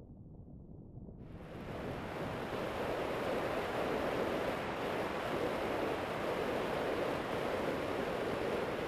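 Wind buffeting the built-in microphone of a camera on a moving motorcycle, a steady rush of noise that hides the engine. It is muffled and quieter for about the first second, then cuts in much louder and fuller.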